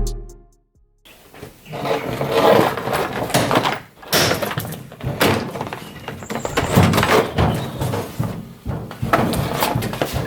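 Background music fading out, then irregular knocks, scrapes and clunks of a car's front bumper cover being pulled off.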